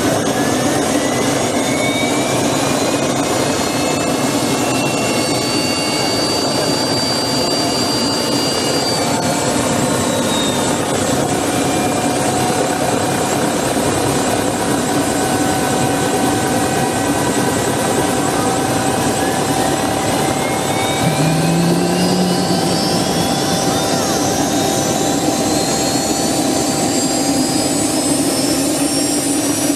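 Eurocopter AS355F2 TwinStar's turboshaft engines starting up: a turbine whine climbs and then falls back about ten seconds in, and a second whine begins rising about eighteen seconds in and keeps climbing as the other engine spools up, over a steady turbine rush.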